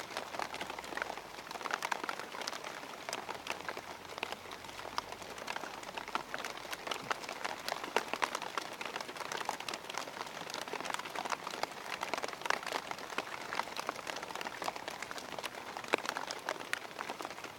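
Rain falling steadily, a dense, irregular run of small drop impacts over a continuous hiss.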